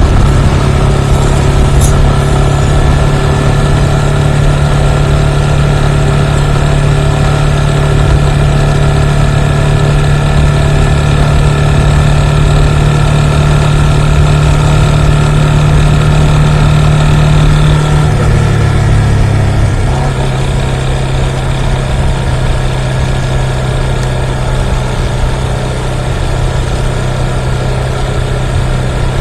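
Motorcycle engine running at a steady pitch. Its note drops lower about eighteen seconds in, then settles at a slightly lower, quieter pitch a couple of seconds later.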